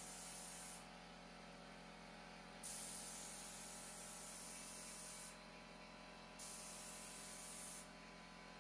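Compressed-air spray gun spraying tinted lacquer: a faint hiss of air and atomised finish in three trigger pulls, the middle one the longest, at about two and a half seconds.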